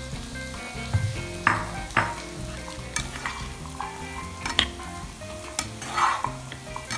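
Half-boiled carrots, peas and green beans stirred in melted butter in a non-stick wok, the slotted spatula scraping the pan in several strokes over a soft frying sizzle.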